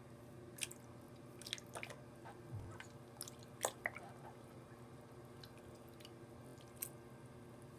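Homemade slime being kneaded by hand in a sink of hot water: faint, scattered wet squelches and small splashes, mostly in the first half, with one more near the end.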